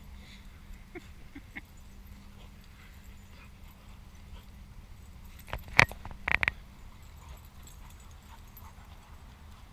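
Dogs playing, with a few short, sharp barks a little past halfway through.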